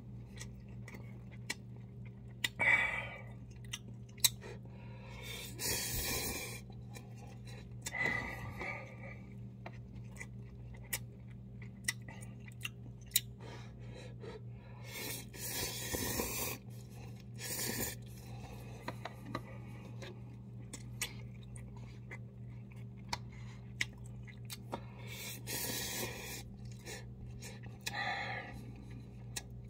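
A person eating instant cup ramen: loud noodle slurps every few seconds, with chewing and small clicks and mouth smacks in between. A steady low hum runs underneath.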